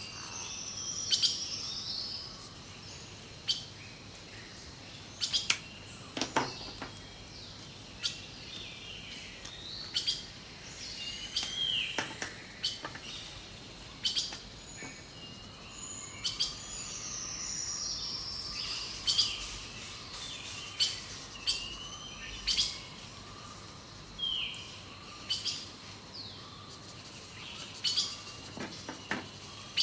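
Songbirds chirping and calling through a nature-sound backdrop, with many short sharp clicks and taps scattered throughout.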